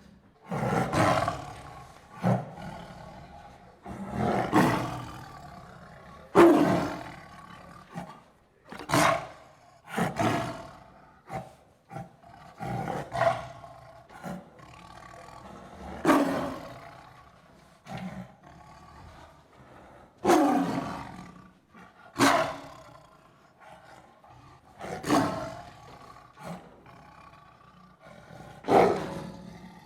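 Tiger snarling and growling in a series of short, harsh roars, one every couple of seconds with brief pauses between.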